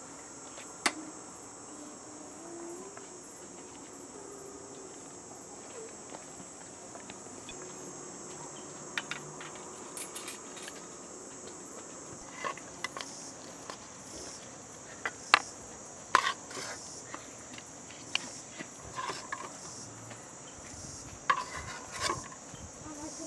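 Insects chirring in a steady high drone, with sharp clicks and clinks of metal skewers and utensils against a glass plate and cookware, scattered at first and more frequent in the second half.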